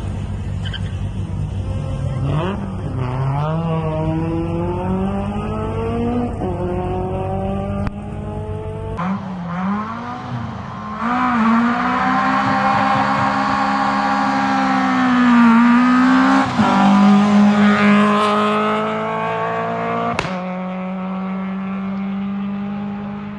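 Rally car engines at full effort. First a car approaches with its engine note climbing in steps through the gears. After a cut, another rally car revs hard, its pitch dipping and rising with each gear change, with one sharp crack about twenty seconds in before the engine note settles and fades.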